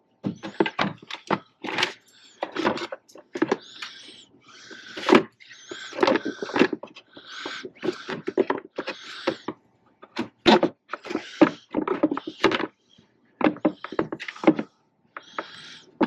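Dodge Ram 2500's air filter box being pushed and worked back into place over the engine: irregular knocks and scrapes, with a few short rubbery squeaks as it seats on its rubber grommets.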